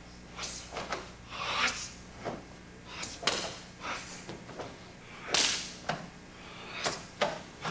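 Sharp snaps and swishes of a karate uniform as a karateka throws fast punches and strikes through a kata, about a dozen at uneven intervals, some louder than others.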